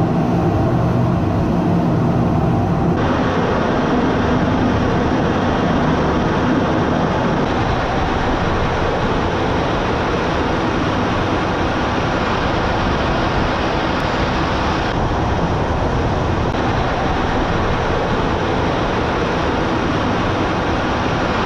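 Steady, loud rushing noise inside a Su-35 fighter's cockpit in flight: jet engine and airflow noise. A low steady hum in it drops away about three seconds in, leaving an even rush.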